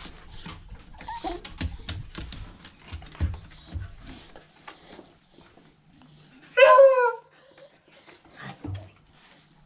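A dog gives one loud bark about two-thirds of the way in, dropping slightly in pitch. In the first few seconds there are scattered scuffs and knocks.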